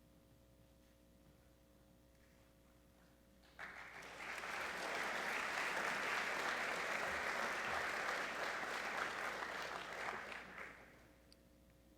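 An audience applauding in a gymnasium, starting about three and a half seconds in, holding for about seven seconds and fading out near the end.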